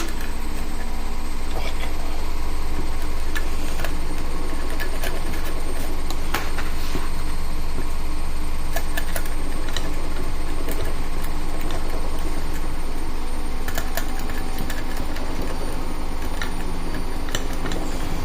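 Washing machine running, a steady low mechanical drone that shakes the table, with scattered light metallic clicks from lock picks working a pin-tumbler lock.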